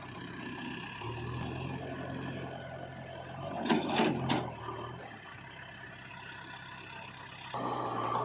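Heavy diesel machinery engine running steadily, with a louder surge about four seconds in; the sound changes abruptly near the end.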